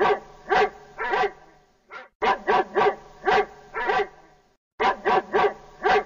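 A dog barking repeatedly, in three runs of several barks with short silent pauses between them.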